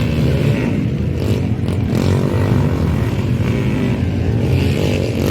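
Motocross dirt bike engines running and revving, their pitch rising and falling.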